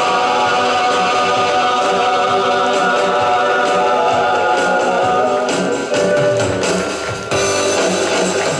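A small group of men singing a Vietnamese song together with instrumental music behind them.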